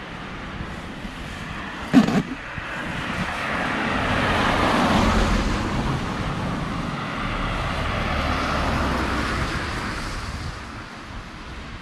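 A car driving past, its tyre and engine noise swelling over a few seconds and then fading away. A single sharp knock comes just before the car, about two seconds in.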